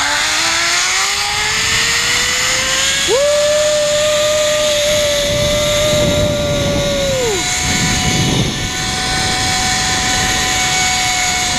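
Zip-line trolley pulleys running fast along the steel cable: a whine that rises in pitch over the first few seconds as the rider picks up speed, then holds steady. Wind rushes over the microphone throughout.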